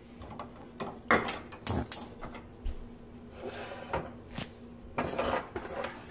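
Kitchen handling noise: a dozen or so irregular knocks and clinks of dishes and utensils, with brief rustling about halfway through and near the end.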